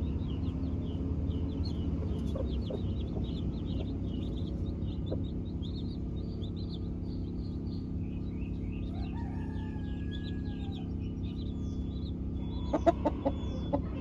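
A brood of chicks peeping continuously in short high cheeps, with a hen giving a drawn-out lower call about nine seconds in and a few sharp loud clucks near the end. A steady low hum runs underneath.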